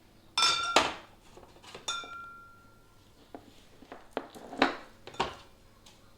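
Glass containers clinking and knocking against each other and hard surfaces. There is a loud ringing clink about half a second in, and a second clink near two seconds that rings on for about a second. A few lighter knocks follow.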